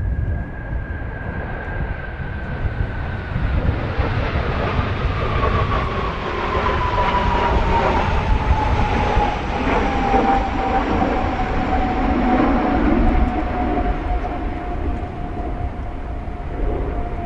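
Kawasaki T-4 jet trainer passing by, its turbofan whine falling steadily in pitch as it goes past, with the roar loudest around the middle. Heavy wind rumble on the microphone runs underneath.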